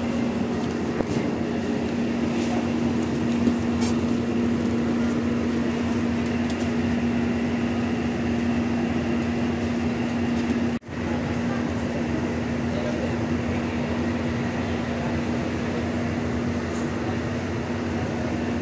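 Inside a King Long XMQ6871CY bus: the steady hum of the engine and air conditioning, with a constant drone, dropping out for an instant about eleven seconds in.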